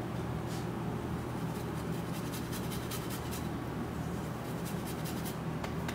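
A lime being zested against a grater: quick, light scraping strokes in two runs, the second shorter, over a steady low kitchen hum.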